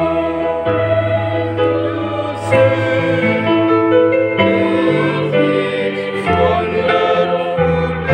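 Church choir singing in parts, with held bass notes from a keyboard accompaniment that change every second or two.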